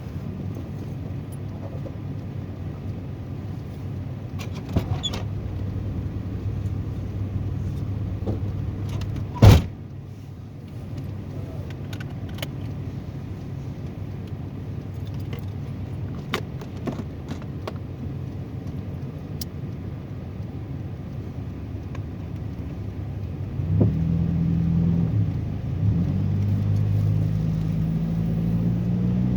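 Car driving slowly through snow, heard from inside the cabin: steady low engine and road noise with scattered light clicks and rattles. A single loud thump comes about nine and a half seconds in. Near the end the engine hum grows louder and steadier.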